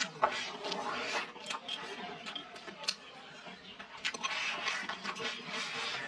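Chopsticks clicking and scraping against a ceramic bowl as rice is shovelled from the rim into the mouth, with two stretches of slurping and chewing.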